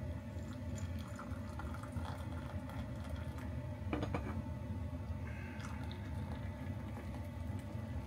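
Brewed tea poured from a stainless steel Turkish double teapot into a ceramic mug. There is a light metallic clink about four seconds in, over a steady low hum.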